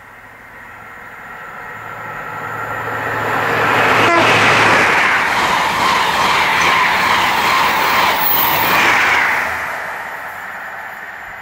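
High Speed Train (InterCity 125) with a diesel power car at each end running through a station at speed. The engine hum and the rush of wheels and air build over about four seconds, with one sharp click as the leading power car passes. The sound stays loud while the coaches go by, then fades away.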